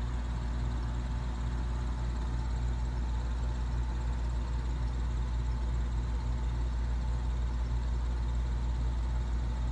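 Steady low mechanical hum of a through-the-wall air conditioner running, even and unbroken.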